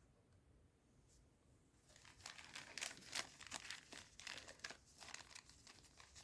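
Plastic packaging of a trading card booster display crinkling and tearing as it is handled and opened, a quick run of crackles starting about two seconds in.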